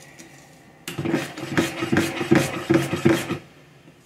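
A metal spoon stirring and scraping through a foamy strawberry-gelatin and whipped egg-white mixture in a plastic bowl: a run of quick rubbing strokes, about three a second, starting about a second in and stopping shortly before the end.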